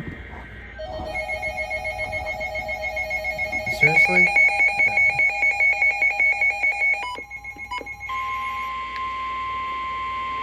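Electronic emergency alert tones. A rapidly pulsing, warbling alert signal grows louder and cuts off about seven seconds in. From about eight seconds on comes a steady single-pitch tone, the 1050 Hz weather radio warning alarm that heralds a new severe thunderstorm warning.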